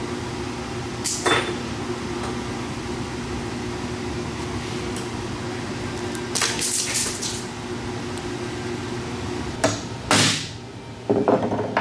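Hammer striking a punch held on a steel flat bar, several sharp metallic hits near the end, marking the hole centre. Before that, only light handling clicks over a steady shop hum.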